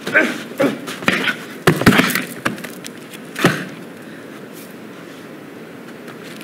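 Stage combat: a quick flurry of thuds, slaps and barefoot stamps on the stage floor, mixed with grunts from the fighters, with a last thump about three and a half seconds in as one fighter goes down; after that only the hall's low background.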